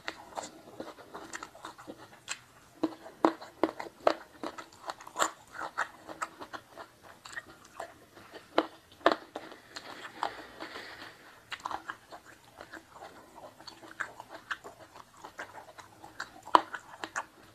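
Close-miked eating sounds: a person chewing and biting food with many sharp, crunchy crackles, the loudest crunches standing out a few seconds in, around the middle and near the end.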